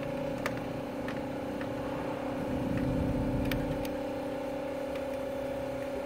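A steady mechanical hum, with a few light clicks and taps over it.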